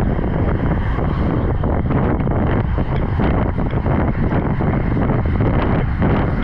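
Wind buffeting the microphone of a road cyclist riding at about 46–48 km/h, a steady loud rumble with the hiss of tyres on a wet road mixed in.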